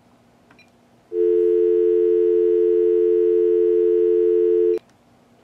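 Dial tone sounding from a VTech cordless phone handset, a loud steady two-note hum lasting about three and a half seconds that cuts off suddenly with a click. It is the tone given by the Linksys VoIP phone adapter, the sign that the phone line through it is working.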